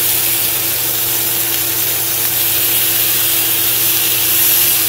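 Paneer and vegetable skewers sizzling steadily on a greased ridged grill pan as they are turned over, with a steady low hum underneath.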